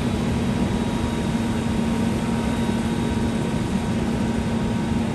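Engine running steadily: a constant low drone with a steady hum.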